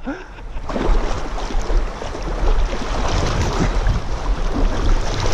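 Wind buffeting an action camera's microphone over the rush of a fast-flowing river, a steady noisy rumble with a brief lull just after the start.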